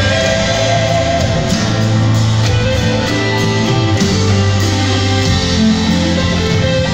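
Live band playing an instrumental passage led by guitars, with steady held bass notes underneath, heard from the audience.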